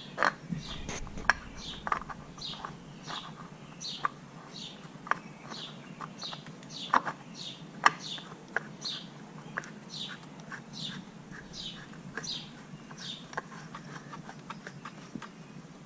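A bird chirping over and over, a short falling chirp about three times every two seconds. Scattered light clicks and knocks come from the new oil filter being handled and threaded on by hand.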